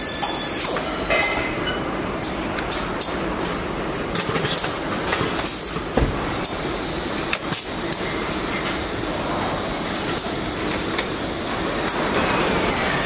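Car assembly-line noise: a steady clattering rumble of machinery with scattered sharp metallic clicks and a short burst of air hiss.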